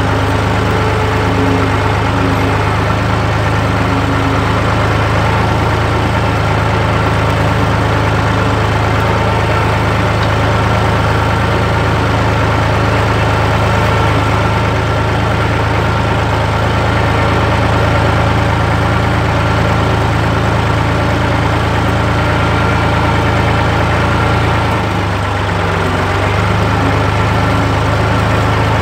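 Tractor engine running steadily at slow working speed while pulling a side-mounted vineyard hoe through the soil. Near the end the engine note drops briefly, then picks back up.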